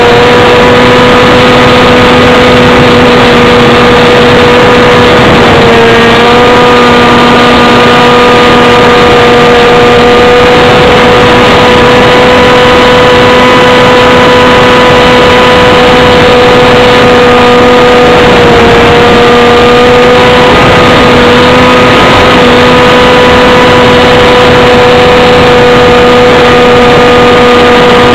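Light aircraft's engine and propeller droning very loudly at a steady pitch, heard from a camera mounted on the aircraft, over a dense rush of noise; the pitch dips slightly and briefly twice.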